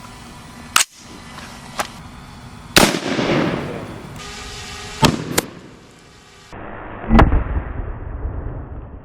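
5.56 rifle shots from an AR-style PSA Jackal fired into a stack of laptops: several sharp reports, the loudest about three seconds and seven seconds in, each trailing off in an echo.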